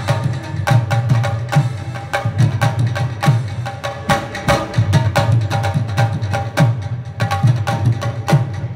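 Live Afghan attan dance music: fast, driving drumming on a dhol with deep booming strokes, and a rubab and harmonium carrying the melody above it.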